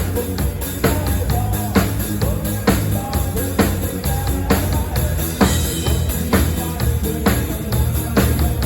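Live rock band with a full drum kit and bass playing a song on stage during a soundcheck, with a strong drum hit about once a second over a steady bass line.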